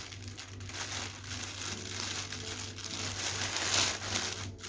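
Grey plastic poly mailer bag crinkling and rustling as it is handled, loudest a little before the end.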